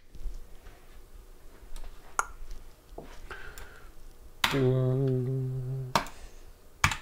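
Scattered sharp clicks of a computer mouse and keyboard. About four and a half seconds in, a steady low hum-like tone sounds for about a second and a half and stops abruptly, louder than the clicks.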